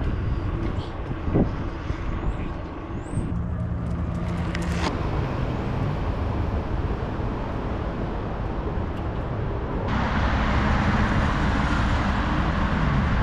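Road traffic heard while cycling, over a steady low rumble. A vehicle's engine hums briefly about four seconds in, and a louder rushing noise of passing traffic sets in about ten seconds in.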